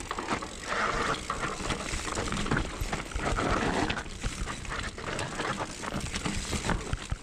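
Bicycle riding downhill over rough, rocky ground: tyre noise with frequent knocks and rattles from the bike jolting over stones, and rushing air on the microphone.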